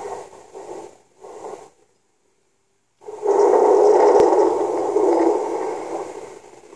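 Loud rushing, static-like noise in two stretches: the first fades and breaks off about two seconds in, and after a second of dead silence it returns at full strength, with a small click, and fades away near the end.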